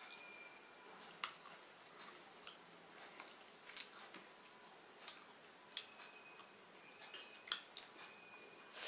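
Faint, scattered soft clicks and small wet drips of someone eating pakhala (water-soaked rice) by hand from a steel bowl.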